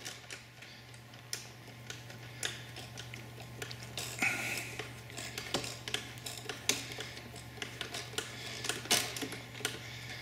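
Irregular small metallic clicks and ticks of a hex (Allen) wrench working the locking screw of a panel-mounted avionics unit, over a steady low hum.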